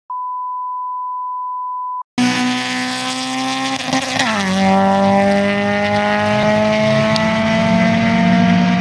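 A steady 1 kHz test tone for about two seconds, then a race car engine at high revs: its pitch drops sharply about four seconds in, as at a gear change, and then climbs slowly as the car accelerates.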